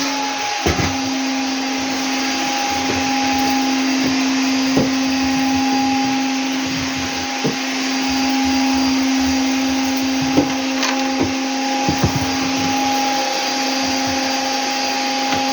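Vacuum cleaner running steadily with a constant motor hum, with a few light knocks scattered through it.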